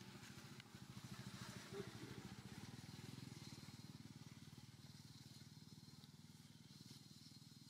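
Faint, steady low hum of a running engine, a fast even pulsing.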